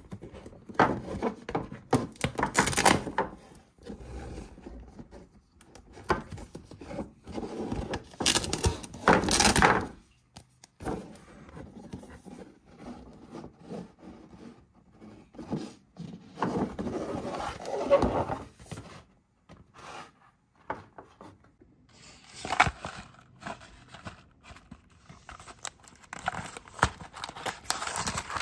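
Paper stickers being peeled and pressed onto a cardboard play scene, with crinkly rustling and scraping in several separate bursts. In the last few seconds, a cardboard box flap is being pried open.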